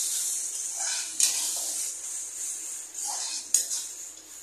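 Masala paste with fresh cream sizzling in a metal kadai while a metal spatula stirs it and scrapes the pan, with a couple of sharp scrapes. The sizzle eases off toward the end.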